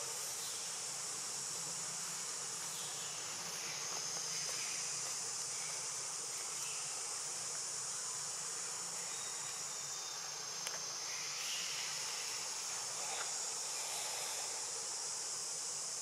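A steady, high-pitched drone from a chorus of insects.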